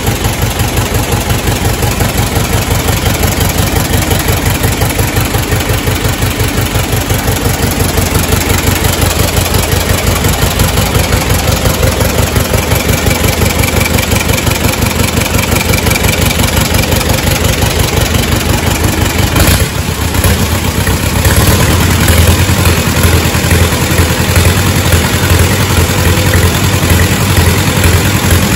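Allis-Chalmers WD45's four-cylinder gasoline engine running steadily with a quick, even firing beat. About two-thirds of the way in it briefly drops, then runs on louder.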